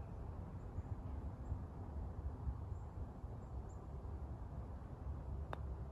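Low steady rumble of wind on the microphone, then a single sharp click about five and a half seconds in: a putter striking a golf ball.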